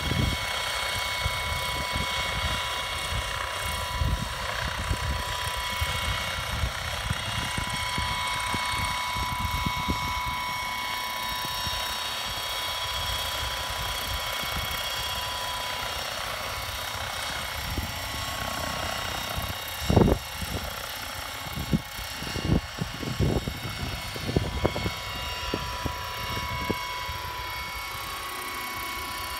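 Hydrogen fuel-cell powered unmanned helicopter running its electric rotor drive: a steady whine with several held tones over the rotor's gusty low rumble. A few loud low thumps come about two-thirds of the way in, and the pitch starts to shift near the end as the helicopter lifts off.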